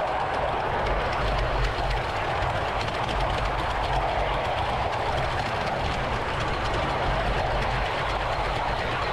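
Ride-on miniature railway train running along the track: a steady rolling rumble with faint ticking of the wheels on the rails.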